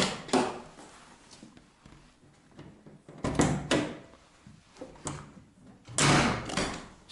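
Steel hood of a VAZ-2106 being shut and its latch worked, giving a series of heavy metal thunks and clunks, the loudest near the end. This is a test of the newly fitted hood-release cable and latch.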